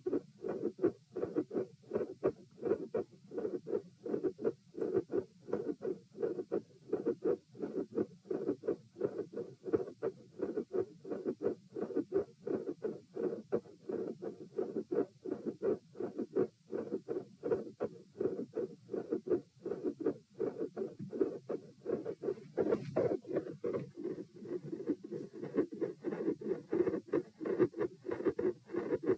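Heartbeat heard through a stethoscope, beating fast and evenly, with a mid-systolic click and a split second heart sound in each beat. A brief rubbing noise comes about two-thirds of the way through.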